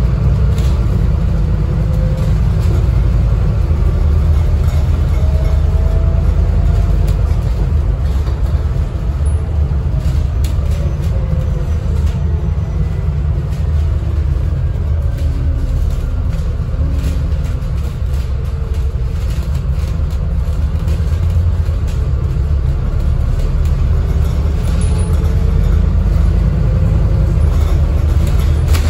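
Scania N250UD double-decker bus heard from inside the passenger saloon while on the move: a steady low rumble of diesel engine and road noise, with the engine note gliding up and down a few times as the bus pulls away and changes speed.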